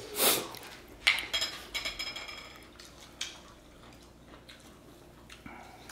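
Cutlery against dishes during a meal. A scrape comes at the start, then a sharp clink about a second in that rings briefly, followed by a few lighter clinks.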